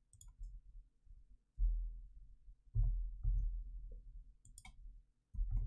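Scattered clicks of a computer keyboard and mouse as a spreadsheet formula is typed and a cell is clicked, with a few dull low thumps among them.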